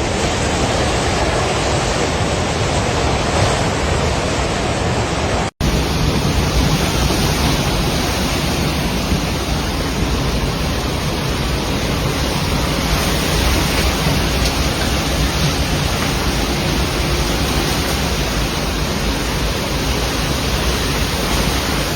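Steady, loud rushing of a river in flood. The sound drops out for an instant about five and a half seconds in.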